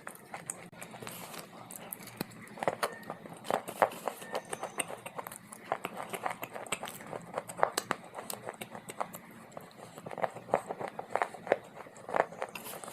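Dry clay being bitten and chewed close to the microphone: irregular sharp crunches, coming in clusters.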